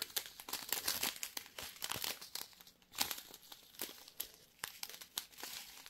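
A strip of small clear plastic packets of round diamond-painting drills crinkling as it is handled in the fingers, a run of irregular little crackles.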